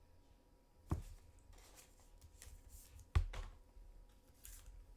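Trading cards being handled: soft swishes of cards sliding against each other, with a sharp knock about a second in and a louder one about three seconds in as cards are set down on the table.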